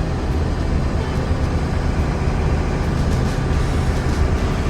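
Engine of a heavy 4x4 van running, heard from inside the cab as a steady low drone with road and cab noise.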